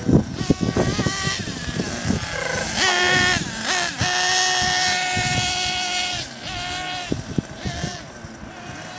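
Nitro (glow-fuel) RC buggy engine revving high and whining as the car is driven across grass. The pitch climbs about a second in, holds a high note around the middle, then drops and fades as the car moves away. Wind buffets the microphone near the start.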